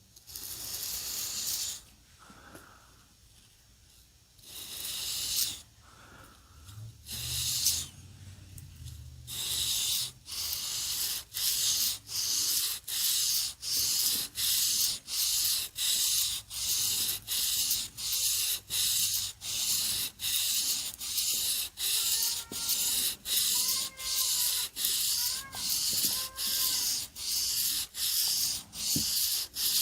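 A knife blade scraped back and forth on a sharpening abrasive. A few separate strokes come first, then from about ten seconds in a steady rhythm of about one stroke a second.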